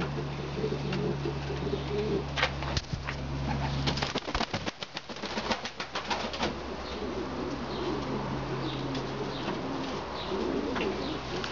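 Pomeranian pouter pigeons cooing over one another, with scattered wing flaps and clatters. A steady low hum stops about four seconds in.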